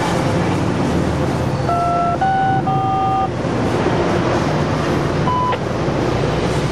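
Coaster bilevel commuter train cars passing close at speed: a steady rumble of wheels on rail, with a short run of brief high-pitched tones about two seconds in and another single tone near the end.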